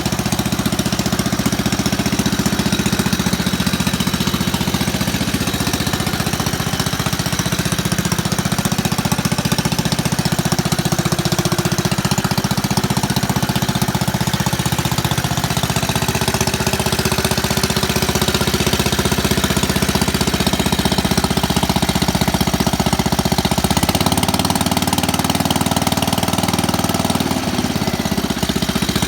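1959 Cushman Truckster's single-cylinder Husky engine running steadily with a fast, even beat, its pitch shifting slightly now and then.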